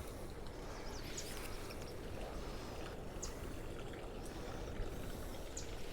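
Steady low rush of a flowing creek, with a few faint scattered clicks.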